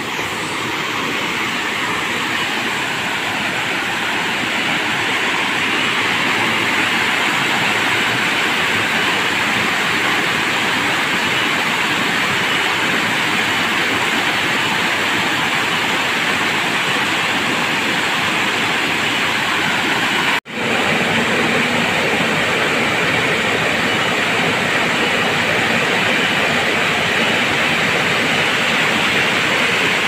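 Waterfall: water pouring steadily over stepped rock ledges, a loud even rush of white water, with a momentary gap about two-thirds of the way through.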